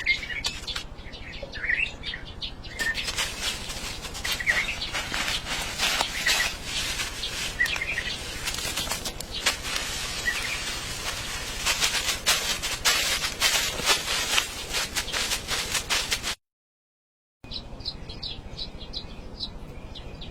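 Rain falling, drops tapping in a dense irregular patter, with birds chirping now and then through it. About sixteen seconds in the sound drops out completely for a second, then returns with a quick run of high, short chirps.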